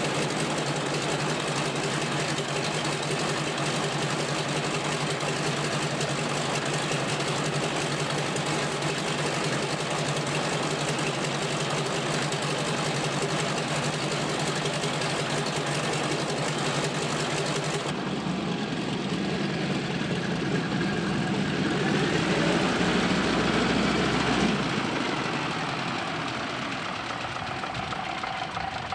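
Mitsubishi A6M Zero's radial engine running at idle after start-up, a steady, uneven rumble. About two-thirds through the sound changes and the engine grows louder for a few seconds, then settles quieter near the end.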